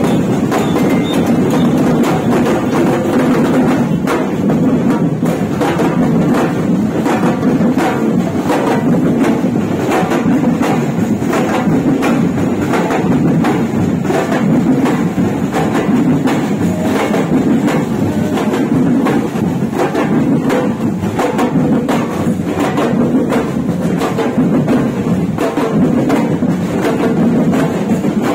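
A street drumline of marching drums, struck with sticks by many drummers together, playing a loud, steady, unbroken percussion beat.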